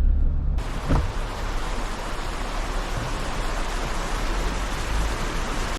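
Steady rushing of fast-flowing floodwater, starting suddenly a little after the start after a brief low car rumble, with one short knock about a second in; it cuts off abruptly at the end.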